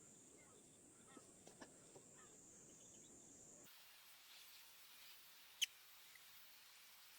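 Near silence: faint outdoor background with a few soft ticks, and one sharp click a little past halfway.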